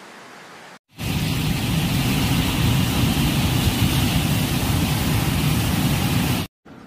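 A river in flood, with muddy water surging in a torrent under a bridge: loud, steady rushing with a deep rumble. It starts suddenly about a second in and cuts off near the end.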